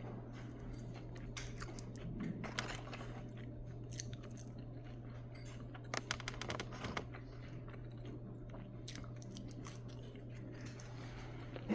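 Someone chewing and crunching on crispy hot fried chicken close to the microphone, faint, with scattered crackles and clicks and a few louder crunches about 2.5, 6 and 7 seconds in. A steady low hum runs underneath.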